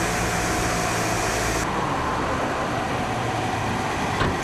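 Steady vehicle engine and road noise, its tone changing abruptly about one and a half seconds in, with a short knock near the end.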